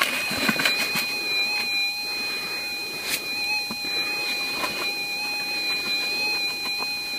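Minelab SDC 2300 metal detector holding a steady, high-pitched threshold tone, with scattered scrapes and clicks of dirt and gravel going into a plastic gold pan.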